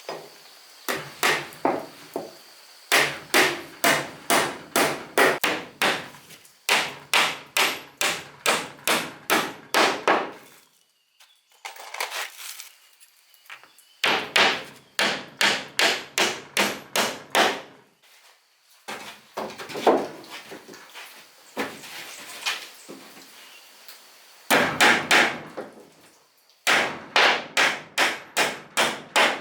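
Hammer striking wood in quick, even runs of blows, about three a second, with short pauses between runs, as when nailing wooden wall boards.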